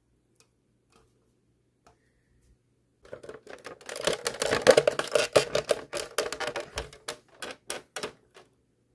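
Hard plastic clattering and rapid clicking from Nerf Vulcan parts being handled as the plastic ammo canister is tipped and moved. It starts about 3 seconds in, is a dense rattle for about three seconds, then thins to a few separate clicks near the end.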